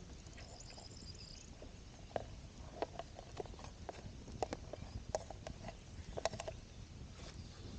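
Small wood campfire crackling: irregular sharp snaps and pops, coming more thickly after the first two seconds.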